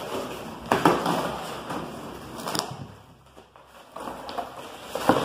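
Cardboard shipping box being opened by hand: flaps pulled up and bent back, with rustling and scraping of cardboard and a few sharp tearing or snapping sounds, the loudest about a second in and again near the end.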